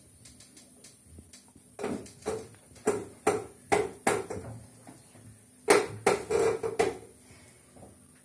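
Wooden knocks and creaks from a large canvas being turned by hand on its pivot on an easel: a quick run of sharp hits about two seconds in, then a second run near six seconds.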